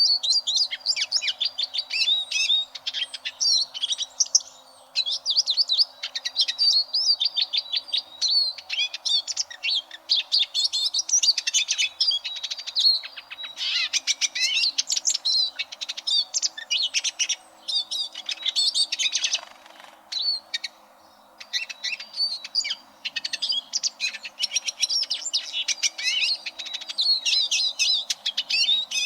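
Eurasian siskin singing: a fast, continuous high twittering of chirps and trills, with brief breaks about five seconds in and again about twenty seconds in.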